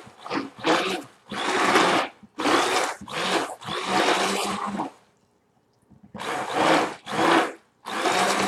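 Handheld immersion blender run in short pulses, starting and stopping repeatedly with a pause of about a second midway. It is mixing guar gum thickener into a liquid conditioner base until the lumps are blended in.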